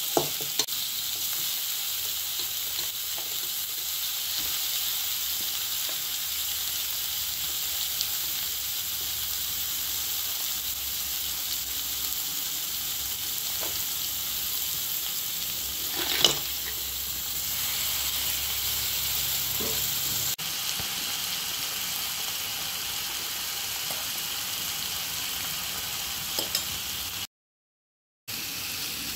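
Brinjal and crab pieces sizzling steadily in hot oil in an aluminium kadai while being stirred, with a steel spoon scraping and knocking on the pan now and then. The loudest knock comes a little past halfway. The sound cuts out for about a second near the end.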